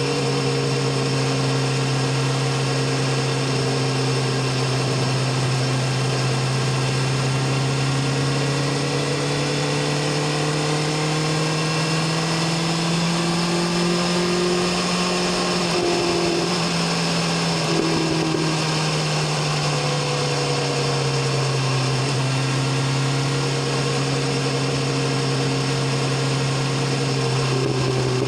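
BMW S1000RR inline-four engine and exhaust at a steady cruise, its note rising gently toward the middle and easing back down, over a constant hiss.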